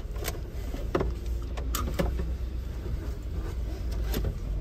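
Steady low rumble of a car's engine and tyres heard from inside the moving car's cabin, with several sharp clicks and knocks scattered through it.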